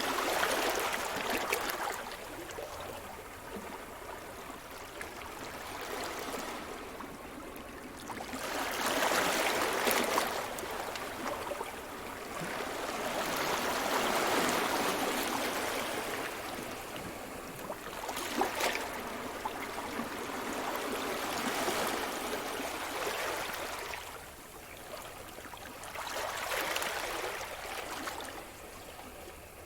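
Sea surf washing in: a rush of water that swells and fades in repeated surges every five to seven seconds, with a brief sharp splash or click now and then.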